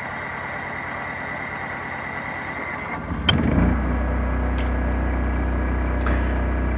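Onan 2500 LP propane generator cranking over on a cold start after sitting about 25 days, with an even pulsing and a whine, then catching about three seconds in and settling into a steady running hum, heard from inside the truck camper. A few sharp clicks follow just after it catches.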